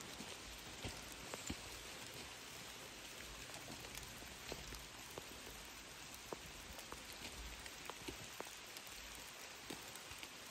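Rain falling on the forest: a steady even hiss with scattered sharp drips.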